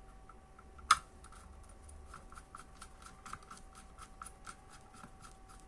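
Small handling sounds from wiring a breaker and bulb holder: one sharp click about a second in, then a string of small irregular clicks and scrapes, over a faint steady hum.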